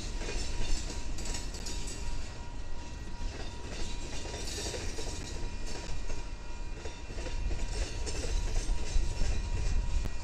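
Freight train passing: a lash-up of diesel-electric locomotives running by, followed by covered hopper cars rolling on steel wheels over the rails, a steady rumble throughout.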